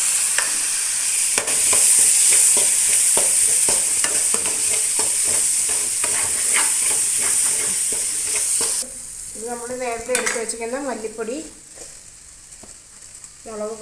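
Tomatoes and onion masala frying in a metal kadai, sizzling steadily while a steel spoon stirs and scrapes the pan with frequent clicks. The sizzling cuts off suddenly about nine seconds in.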